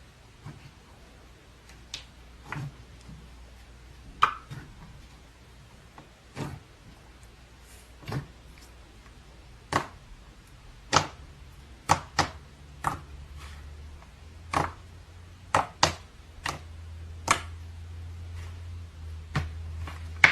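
Slime being pressed and worked by hand, giving sharp pops and clicks at irregular intervals, roughly one a second.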